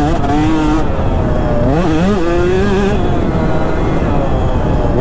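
KTM 150 SX two-stroke motocross engine pulling steadily in third gear, easing off about a second in. It revs up sharply near two seconds and holds briefly, then comes off the throttle, leaving a rushing noise until it picks up again at the very end.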